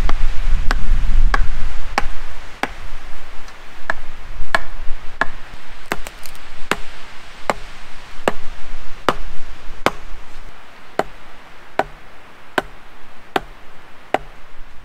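Axe chopping wood in a steady rhythm: about twenty sharp strokes, roughly one every three-quarters of a second, each with a short ring.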